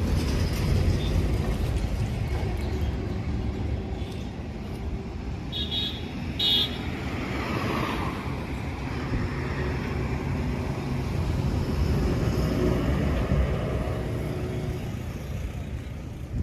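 Road traffic passing: a steady low engine and tyre rumble that swells and fades as vehicles go by, with two short high toots about six seconds in.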